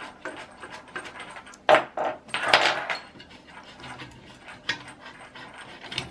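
Handling noise from hands working at the heated-bed cable and connector under the 3D printer's aluminium frame: small clicks and rubbing, with a few louder short scuffs about two seconds in.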